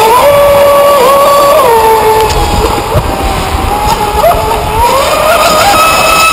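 Radio-controlled model boat's motor running at high revs. Its pitch steps up and down with the throttle, dropping lower in the middle and climbing again near the end.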